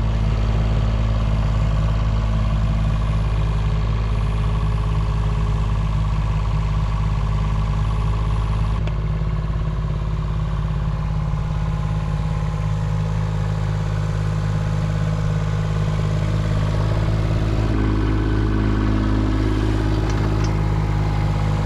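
Excavator's diesel engine running steadily under load, its note changing a few times as the hydraulic controls are worked.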